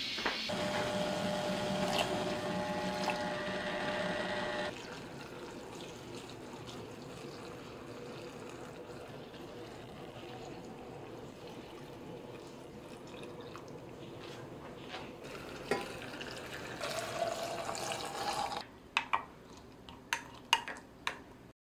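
Hot soy-sauce brine pouring from a pot into glass jars packed with sliced green chili peppers, a steady splashing pour that is louder for the first few seconds. Near the end come several sharp knocks of a wooden spoon against a glass jar.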